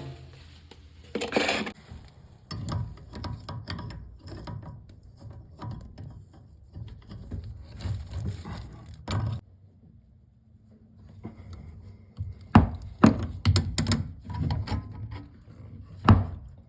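Hands and hand tools working on a toilet's water supply shut-off valve: irregular knocks, clatters and scraping, with a louder scrape about a second in and several sharp knocks near the end.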